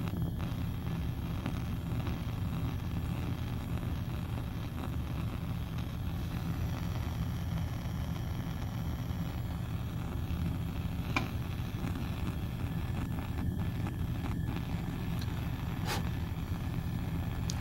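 Bunsen burner flame burning with a steady low rumble, with a couple of light clicks near the end.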